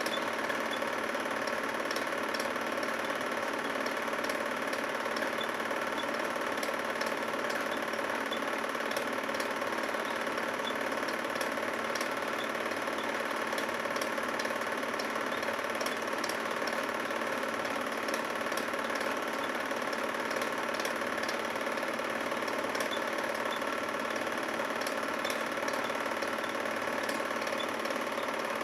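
Film projector running: a steady mechanical whir with faint clicking, unchanging throughout.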